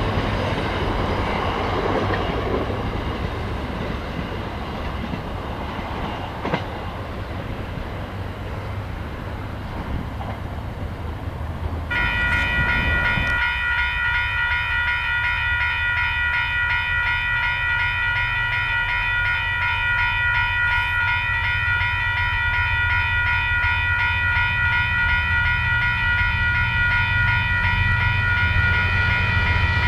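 A passenger train's carriages rolling past on the rails for the first dozen seconds. Then a level-crossing alarm bell ringing rapidly and steadily, while a diesel locomotive's low engine rumble grows as it approaches near the end.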